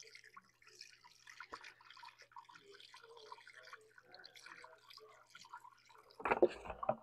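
Antifreeze trickling and dripping from a jug through a funnel into a radiator filler neck while the radiator is topped off. A louder bump and rustle of handling comes near the end.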